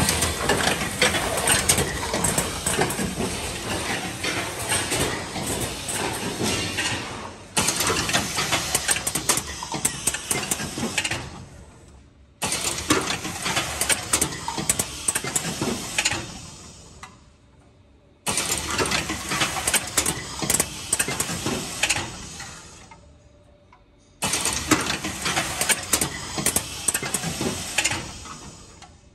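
Rotary cup-filling and foil-sealing machine running, a dense mechanical clatter of many quick clicks and knocks. It comes in several stretches that each start abruptly and fade away.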